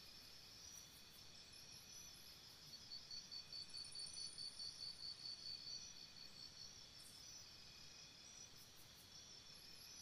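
Jungle morning ambience of insects chirping. One faint high chirp pulses about four times a second, strongest from about three seconds in until about six and a half, over a steady chorus of other high insect calls.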